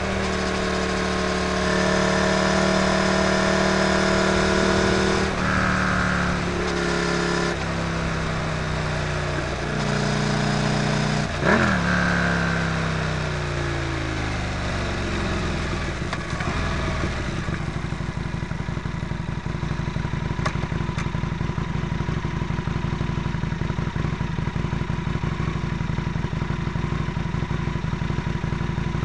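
A vehicle engine running under way, its pitch stepping between gears, with a sharp rev blip about eleven seconds in. The pitch then falls as the vehicle slows, and the engine settles into a steady idle for roughly the last dozen seconds.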